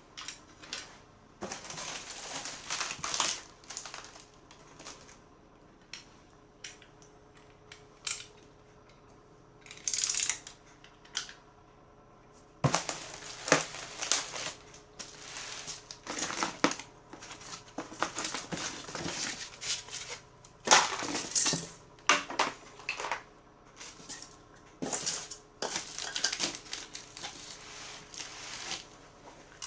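Packaging being handled during unboxing: crinkling and rustling in irregular bursts, with scattered clicks and knocks.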